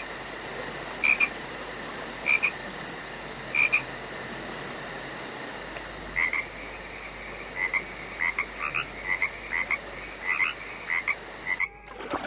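Frogs croaking in short repeated calls, about one a second at first, then quicker and more frequent from about six seconds in, over a steady high-pitched background hum. The sound cuts off suddenly near the end.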